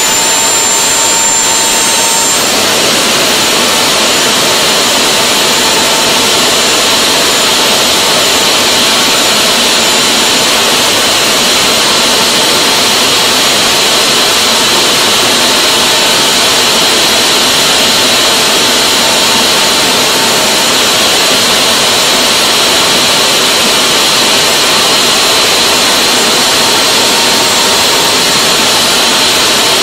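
Home-built gas turbine jet engine with an afterburner tube fitted, running steadily: a loud rushing roar with a steady high turbine whine.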